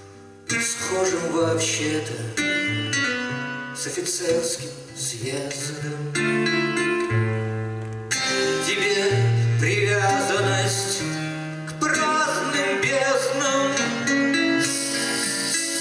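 A man singing to his own classical guitar accompaniment; the plucked guitar comes in sharply about half a second in and carries on under the voice.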